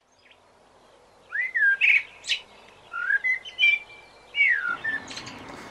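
A songbird singing a run of short whistled phrases: falling slurs and brief trills, several in a row with short gaps between them.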